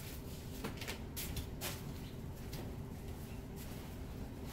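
Quiet room tone: a faint steady hum with a few soft clicks and light taps about a second in.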